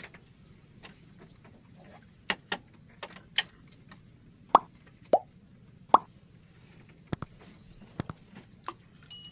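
Water plopping and dripping at a bamboo raft's floats: about a dozen irregular sharp plops, some with a quick falling pitch. Near the end, a short electronic chime with clicks.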